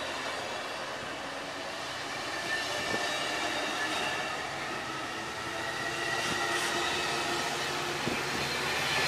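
Amtrak Pacific Surfliner bilevel passenger cars rolling past as the train pulls out: steady wheel-on-rail rumble with a few sharp wheel clicks and a faint high squeal from the wheels, growing louder near the end.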